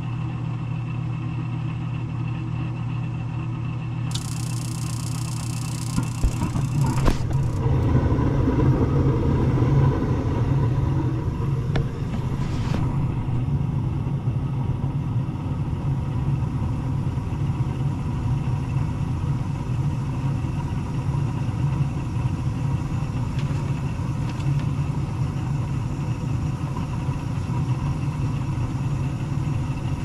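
Gas furnace running: the draft inducer motor's steady hum, in a unit the homeowner reports as loud. A few seconds of hiss come about four seconds in, and about seven seconds in the hum grows louder and rougher and stays that way.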